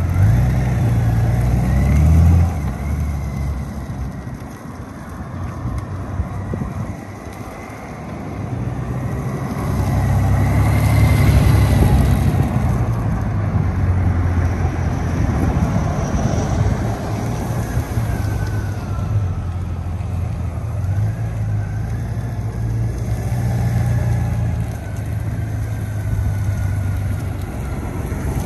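2021 Honda Gold Wing's 1833 cc flat-six engine running at low speed as the DCT motorcycle circles through slow, tight turns. It grows louder and fades again as the bike comes near and moves away, dipping a few seconds in and loudest about ten seconds in.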